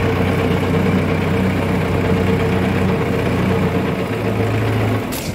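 Tractor diesel engine running steadily, heard from the driver's seat, with a brief knock near the end.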